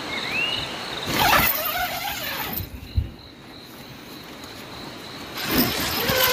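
Tent door zipper pulled along in two long strokes, about a second in and again near the end, with the tent's fabric rustling and a single click in the quiet between. A steady high insect drone and a short bird chirp near the start sound behind.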